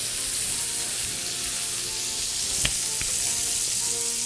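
Bacon-crusted burger patty sizzling steadily in a cast iron pan, with a sharp knock about two and a half seconds in and a lighter click just after.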